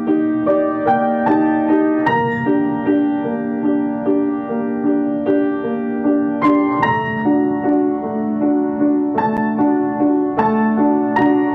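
Piano music: a steady run of evenly paced, repeating notes with a few higher notes struck on top.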